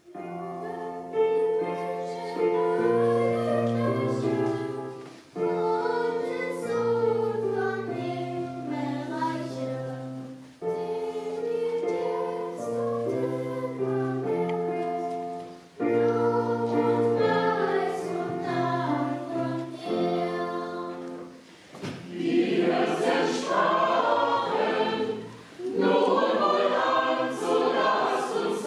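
Choir singing in phrases about five seconds long, each ending in a brief pause.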